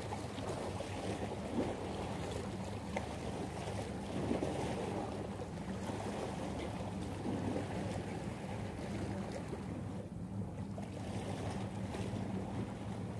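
Small waves lapping against breakwater rocks, with wind on the microphone and a steady low hum underneath. Two short ticks come in the first few seconds.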